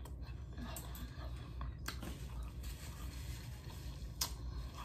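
Close-up mouth sounds of eating a hard-shell taco: chewing with a few sharp crunches of the fried corn shell, the loudest a bite about four seconds in, over a steady low hum.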